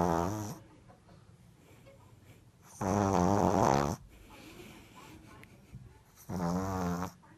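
Sleeping pug snoring: a snore trails off at the start, then two more buzzing snores follow about three and a half seconds apart, each lasting about a second.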